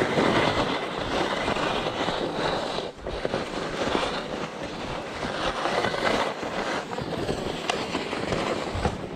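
Skis scraping and sliding over hard, chalky snow: a steady rough hiss with many small crackles.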